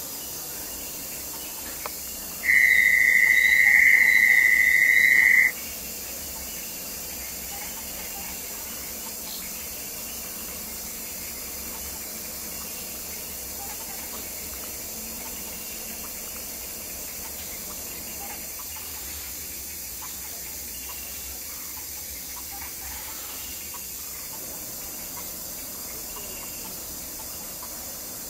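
Constant steady hiss, with one loud, steady high-pitched tone about three seconds long that starts a couple of seconds in and cuts off suddenly.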